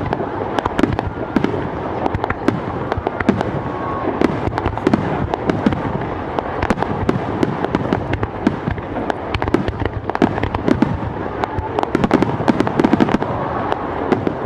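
Aerial fireworks going off in rapid succession: many sharp bangs and crackles close together over a continuous rumble, with dense clusters near the end.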